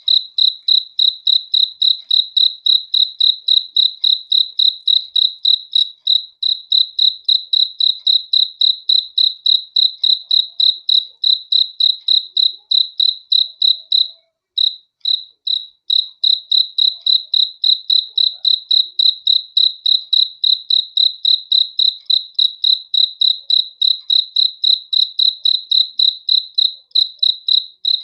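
A cricket chirping, a steady run of short, high-pitched chirps at an even rapid rate, with a brief pause about halfway through.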